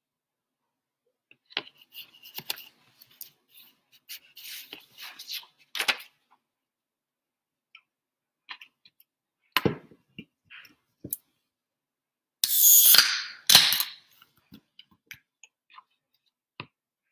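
Desk handling noises: scattered small clicks, taps and rustles, with a louder rustle lasting about a second, followed by a sharp click, past the middle.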